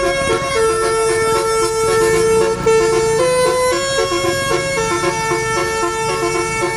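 A bus's multi-tone telolet (basuri) horn playing a tune: a string of held notes that step up and down in pitch every half second or so, over a fast repeating lower note.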